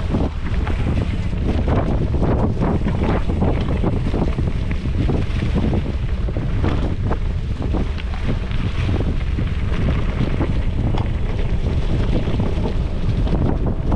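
Yeti SB115 mountain bike on Maxxis Minion DHR tyres riding dirt singletrack: a steady tyre rumble with irregular knocks and rattles as the bike goes over bumps, and wind buffeting the handlebar-mounted camera.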